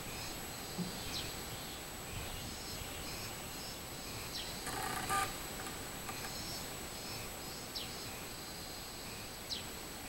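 Robust cicada (minmin-zemi) singing in repeated high-pitched phrases, with a few short falling chirps over it and a brief noisy burst about five seconds in.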